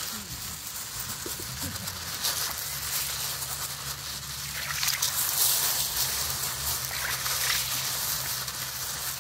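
Lake Superior water lapping and sloshing against shoreline rocks, with small irregular splashes. A low steady hum sits underneath from about two seconds in.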